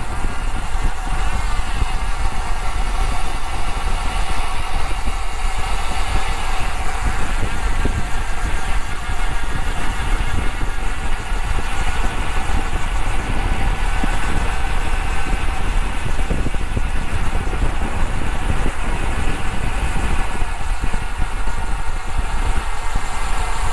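Wind buffeting the microphone of a handlebar-mounted camera on a road bike riding at speed, with tyre and road noise underneath: a loud, steady, flickering low rumble that does not let up.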